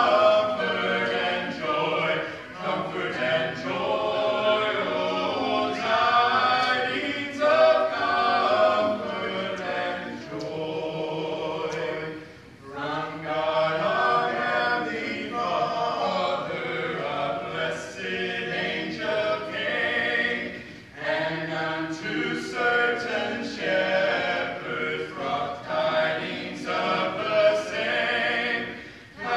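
A group of voices singing together a cappella, with no instruments, in long held phrases that break off briefly twice, about twelve and twenty-one seconds in.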